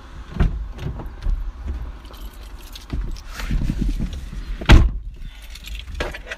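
Handling noises inside a car: rustling and small knocks as someone moves in the seat, with one sharp click or knock about three-quarters of the way through.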